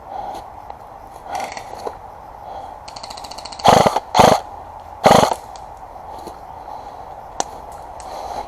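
Airsoft guns firing: a fast rattle of shots about three seconds in, then three short, loud full-auto bursts close by within the next two seconds.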